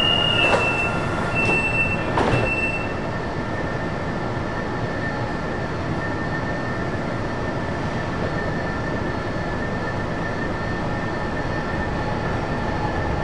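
Fuzhou Metro Line 4 train heard from the front cab at a station: a steady hum with a few knocks in the first couple of seconds. The train starts to move off near the end.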